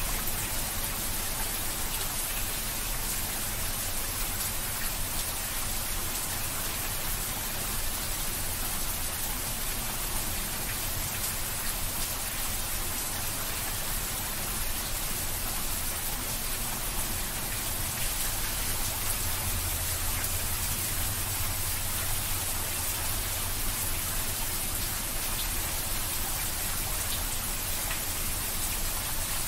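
Steady rain falling, an even hiss of rain with faint separate drop ticks scattered through it.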